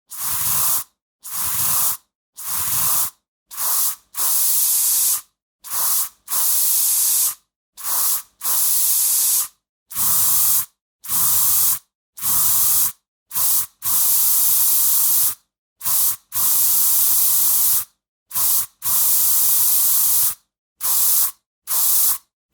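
Aerosol spray can hissing in about twenty separate bursts with short silent gaps between them. Some are quick puffs under half a second, others are held sprays of up to about a second and a half.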